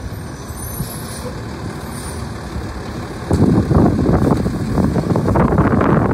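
Automated side-loading garbage truck pulling up to the curbside carts with its diesel engine running; about three seconds in the sound gets much louder as the truck works its pickup arm toward a cart.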